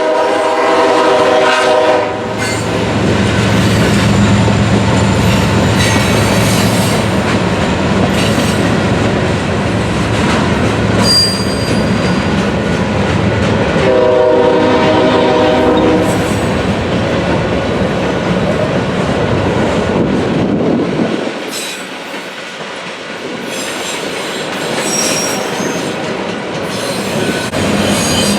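Freight train passing close by: the diesel-electric locomotives' multi-chime air horn sounds a blast at the start and another a little past the middle, over the steady drone of the locomotive engines. After the engines pass, the cars follow with rail clatter and brief high wheel squeals.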